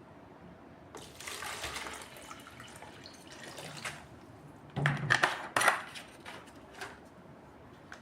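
Water being poured into an HHO generator's water container for about three seconds, followed by a few loud clicks and knocks of plastic parts being handled.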